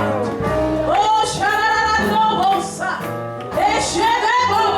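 Gospel worship song: a woman's singing voice over instrumental accompaniment.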